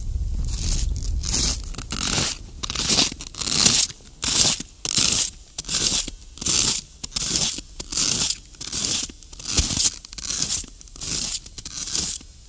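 Snowshoe footsteps crunching through deep snow at a steady walking pace, about two crunches a second, starting about a second in. Low wind rumble on the microphone before the steps begin.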